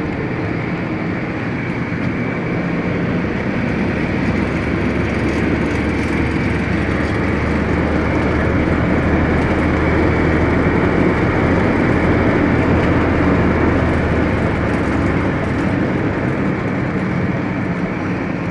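Engine and road noise inside a moving vehicle's cabin: a steady drone with a low engine hum, a little louder in the middle.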